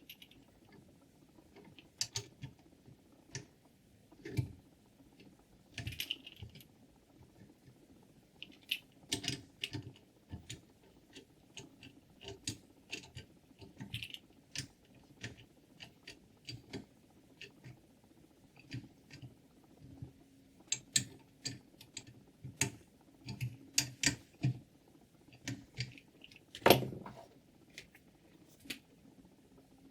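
Irregular light clicks and knocks of small hard parts being handled and set down, with one louder knock near the end, over a faint steady hum.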